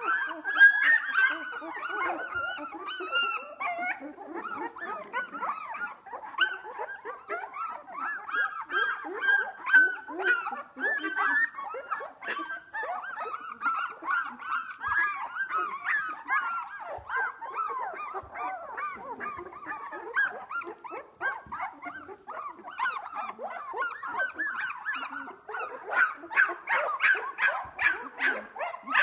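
A litter of two-week-old Australian Labradoodle puppies whining, squeaking and squealing nonstop, many short high calls overlapping.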